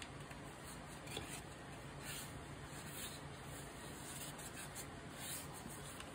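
Hands handling a small folded piece of thick white paper card, giving a few soft rustles and rubs of paper against skin and table.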